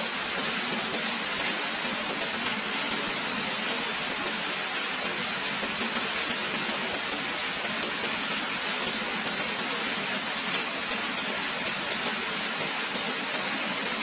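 Heavy rain falling steadily, an even hiss with no breaks or thunder.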